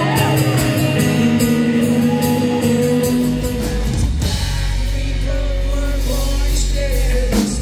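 Live band playing a country-tinged rock song with strummed acoustic guitar, electric guitar, bass and drums, and a man singing.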